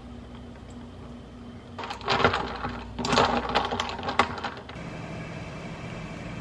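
Ice cubes rattling and clinking inside a glass bottle as iced coffee is stirred with a glass straw, a fast run of clinks lasting about three seconds in the middle. Before and after it there is only a low steady background hum.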